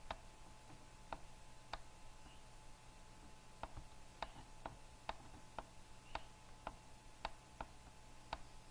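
Faint, irregular clicking, about a dozen short clicks spread unevenly, over a low steady hum. The clicks come while text is being handwritten on the slide with a computer pointer.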